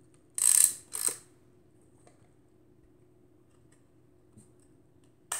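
Film-advance lever of a SEM Semflex twin-lens reflex camera being wound, which also cocks the shutter: a short burst of dry mechanical clicking and whirring about half a second in, a shorter one just after, and another burst of rapid clicks near the end.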